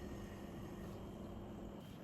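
Steady low hum of room tone, with a faint even drone and no distinct events.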